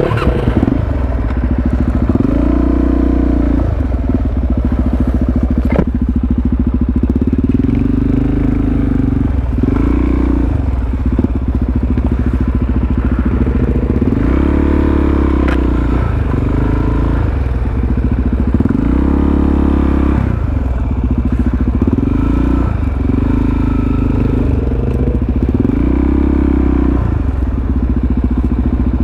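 Supermoto motorcycle engine being ridden slowly over rough ground, the throttle opened and closed again and again so the revs rise and fall every two to three seconds.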